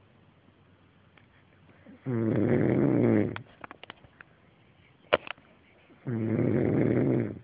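A man snoring loudly in his sleep: two long snores about four seconds apart, with a few small clicks after the first and a short sharp click between them.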